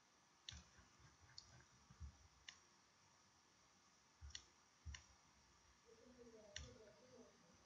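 Faint computer mouse clicks and key presses, about seven scattered sharp clicks over several seconds, made while the Ctrl key and right mouse button are used to rotate a 3D model on screen.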